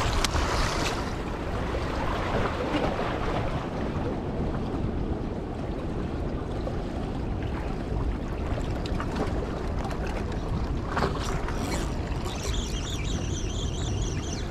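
Wind buffeting the microphone over steady surf washing on shoreline rocks, with a few faint clicks and a faint, high, repeated chirring near the end.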